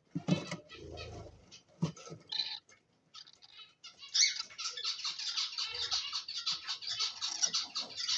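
Pet cockatiels calling: a few scattered chirps and knocks at first, then from about halfway a dense, rapid chatter of high chirps.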